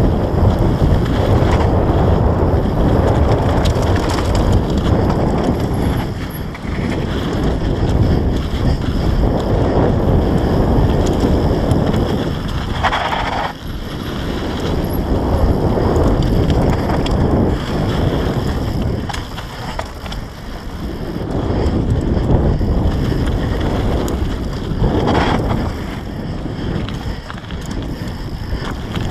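Wind buffeting the microphone of a camera carried on a mountain-bike ride, a loud, rough rumble that rises and falls as the ride goes on. It eases briefly several times, and there is a short higher-pitched sound about thirteen seconds in.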